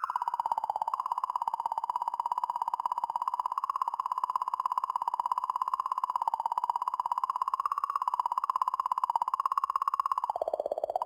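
Sonified oscillations of comet 67P/Churyumov–Gerasimenko's magnetic environment recorded by the Rosetta spacecraft, converted up into the audible range. It is an eerie, wavering electronic tone with a fast flutter, which sags lower in pitch about ten seconds in.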